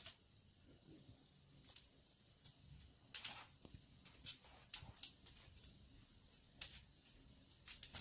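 Faint, scattered scratches and clicks of a cat's claws scrabbling against a painted wall as it clings and climbs.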